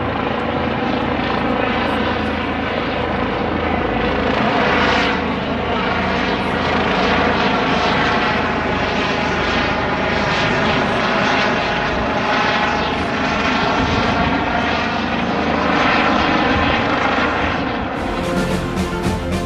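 T929 ATAK 2 attack helicopter prototype running its turbine engines on a ground engine run, a steady loud whine with slowly sweeping swells. Music comes in near the end.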